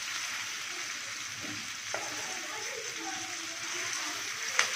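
Mutton liver pieces sizzling in hot oil and ginger-garlic paste on a flat tawa griddle, with a steady frying hiss. A wooden spatula stirs them and knocks lightly against the griddle twice, about two seconds in and near the end.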